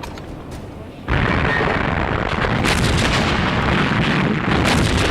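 Battle sound of an artillery barrage: about a second in, a dense, continuous din of heavy guns firing and shells bursting starts suddenly and keeps up.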